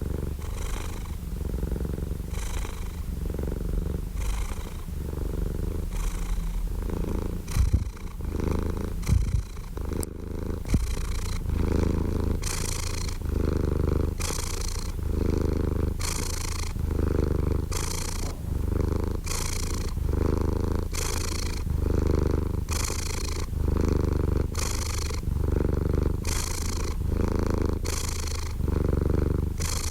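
Domestic cat purring close up, a steady low rumble that swells and eases in a regular rhythm about once a second with each breath in and out. A few brief knocks near the middle.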